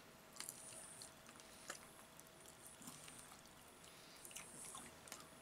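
Faint chewing and mouth clicks of a person eating fried chicken, with a few soft clicks scattered through.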